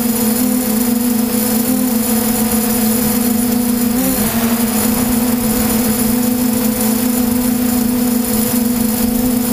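DJI F550 hexacopter's six electric motors and propellers in flight: a steady whine at two pitches over a hiss, heard close up from the camera on the craft. The pitch wobbles briefly about four seconds in as the motors adjust.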